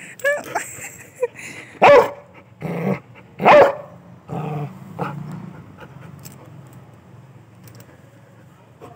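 Yellow Labrador retriever barking and growling: a few short yips, then two loud barks about two and three and a half seconds in, with low growling between and after them. It is an angry, protective reaction to its owner being mock-hit.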